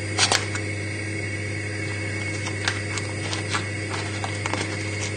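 Knife cutting a block of butter into cubes on its foil wrapper: a sharp click about a third of a second in, then scattered light clicks and foil crinkles, over a steady background hum.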